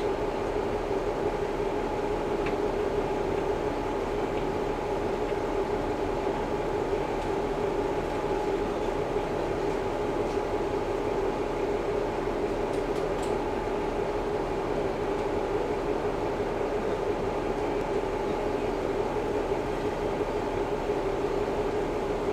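Kiha 11-100 diesel railcar at a standstill with its engine idling, heard from inside the car as a steady, even hum with no change in pitch.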